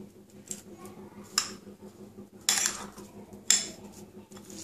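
A steel spoon stirring soaked rice in a bowl, soft scraping through the grains, with four sharp clinks of the spoon against the bowl about a second apart.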